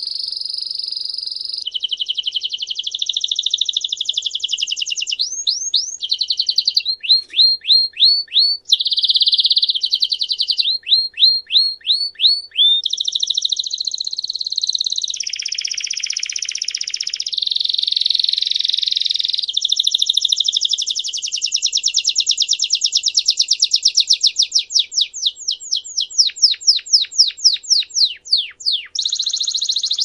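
Belgian canary singing a long, unbroken song of rapid trills and rolls that change phrase every second or two. Runs of quick falling notes, a few a second, come about a quarter of the way in and again near the end.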